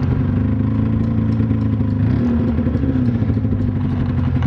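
Twin-cylinder 600 snowmobile engine running at low speed with a rough, coughing beat: it is firing on only one of its two cylinders. Its pitch wavers slightly up and down about halfway through.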